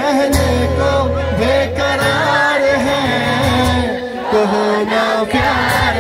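Live song amplified through a PA: a male voice singing over a strummed acoustic guitar.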